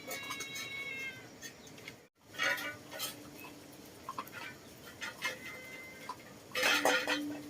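A cat meowing: one drawn-out call falling slightly in pitch at the start, followed by scattered short knocks and noises, the loudest near the end.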